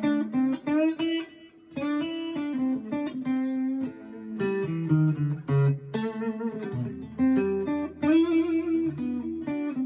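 Solo guitar playing: plucked chords and single notes, each ringing briefly before the next, with no accompaniment.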